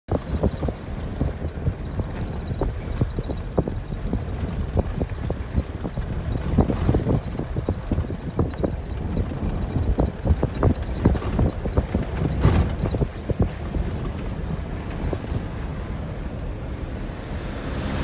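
Vehicle driving over a rough, wet dirt road, heard from inside the cab: a steady low rumble with frequent irregular knocks and clunks as it goes over bumps. Right at the end a rushing noise begins to build as an oncoming truck nears.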